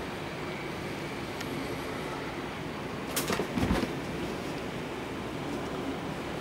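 A steady background hum, broken about three seconds in by a quick cluster of knocks and a dull thud as a cat jumps up and lands on the upholstered sofa back.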